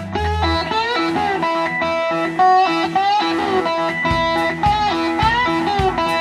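Background music: a bluesy rock track led by an electric guitar playing bending lead notes over a steady bass and drum beat.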